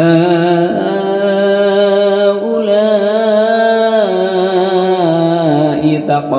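A man's voice chanting Quranic recitation in the melodic tajwid style, drawing out one long ornamented note that steps up and down in pitch several times.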